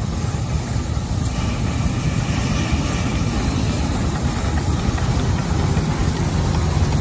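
The 726 road locomotive, a steam-locomotive-styled wheeled road vehicle, running with a steady low engine rumble.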